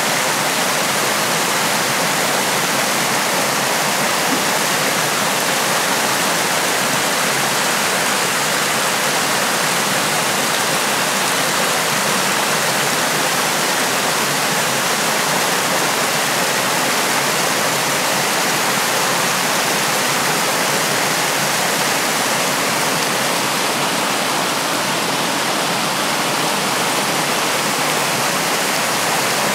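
Small creek waterfall: water pouring steadily over a ledge with an even, unbroken rush of falling water.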